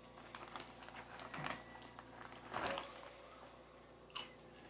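Herr's roasted garlic and herb potato chips being crunched and chewed in the mouth, with a few louder crunches about a second and a half and two and a half seconds in.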